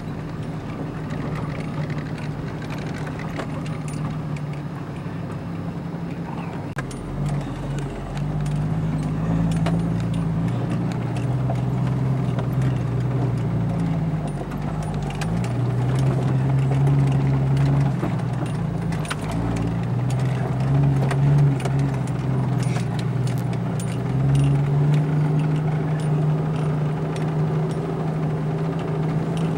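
Vehicle engine running inside the cabin while driving slowly over a rough dirt track; its hum shifts in pitch several times, with a deeper rumble from about seven seconds in. Frequent rattles and clicks come from the vehicle and loose items jolting over the bumps.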